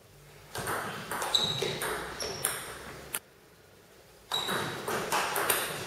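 Table tennis rally: a celluloid ball clicking off the table and the players' rubber-faced paddles, each hit with a short ringing ping and a little echo. The clicks stop for about a second past the middle, then a new series of hits begins.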